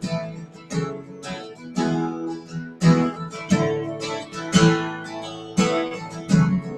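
Acoustic guitars strumming chords in an instrumental break of a country song, with no singing. The strokes are sharp and the chords ring on between them.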